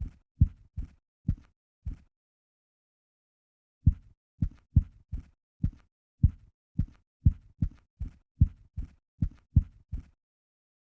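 Typewriter keys struck one at a time, dull low knocks at about two to three a second, with a pause of about two seconds after the first few strokes.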